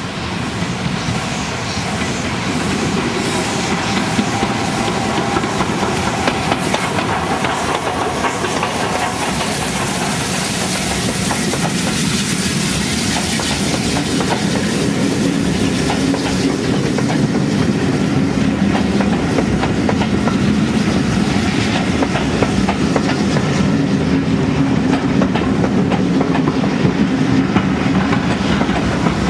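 Preserved steam train passing close by: Southern Railway Lord Nelson class locomotive No. 850 hissing steam, then its coaches rolling past with wheels clicking over the rail joints. A steady low drone builds through the second half.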